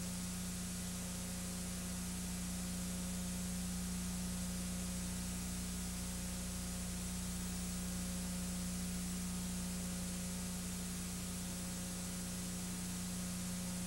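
Steady hiss with a low electrical hum and no other sound: the noise floor of a silent home-movie transfer.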